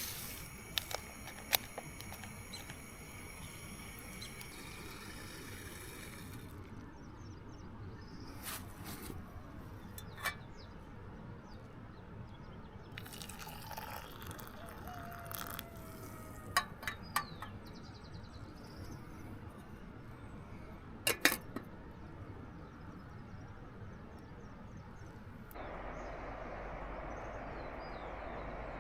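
Outdoor campsite ambience: a steady hiss with insects chirping for the first few seconds, and scattered sharp clicks and knocks. About 25 seconds in, a louder steady rushing noise cuts in suddenly.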